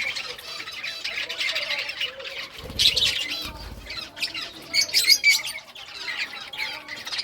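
A group of budgerigars chirping and chattering without a break, with louder squawks about three and five seconds in.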